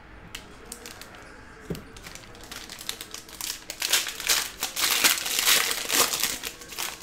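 Foil baseball-card pack wrapper crinkling as it is torn open and crumpled by hand, growing denser and louder through the second half.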